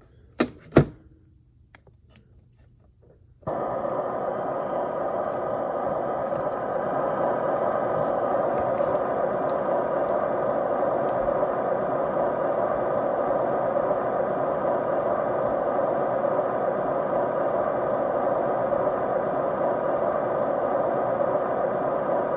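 A couple of sharp clicks, then about three and a half seconds in a steady white-noise hiss starts abruptly and runs on evenly, strongest in the middle range with faint steady tones through it.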